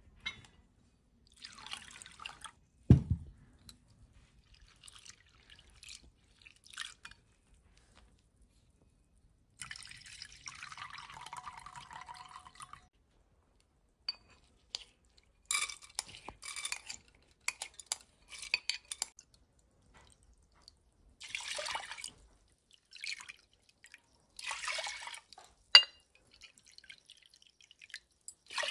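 Soaked split pigeon peas (toor dal) and water being handled in a steel pressure cooker: bursts of splashing and dripping water, with short clinks and scrapes of a spoon, start and stop with quiet gaps between them. A single loud thump comes about three seconds in.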